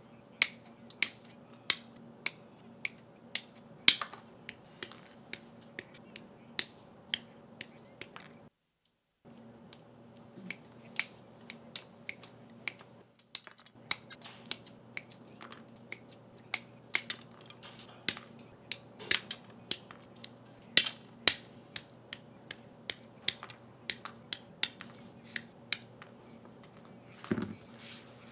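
Sharp, irregular plastic clicks and snaps of a Master Grade Gunpla kit being assembled, its parts cut from the runners and pressed together, over a faint steady hum.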